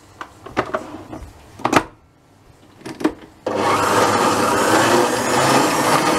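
A few knocks and clicks as the stand mixer's head is lowered over the bowl. About three and a half seconds in, the mixer starts and runs steadily, its wire whisk beating egg whites to stiff peaks.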